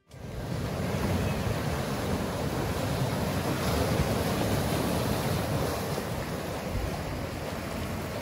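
Sea surf breaking and washing among shoreline rocks, a steady rushing noise, with wind buffeting the microphone.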